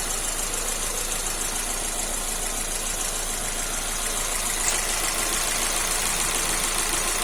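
Geely CK's engine idling steadily under the open bonnet, with a steady high hiss over it, while the freshly resealed LPG reducer is checked for leaks.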